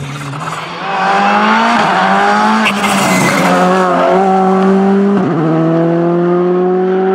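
Rally car engine accelerating hard as it passes, the pitch climbing and then dropping at each gear change, about three times. There is a sharp pop about three seconds in.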